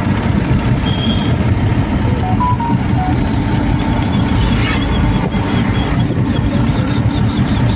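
Car engine and road noise heard from inside the cabin at highway speed, a steady low rumble. From about halfway a faint, rapid high-pitched beeping joins in.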